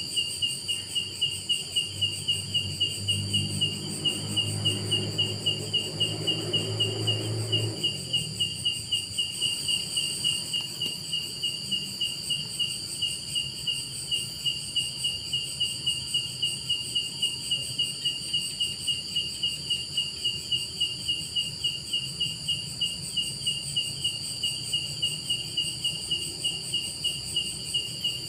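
Night insects calling: a cricket chirping in an even, rapid rhythm over a steady high-pitched trill from other insects. A low hum joins from about two seconds in and stops about eight seconds in.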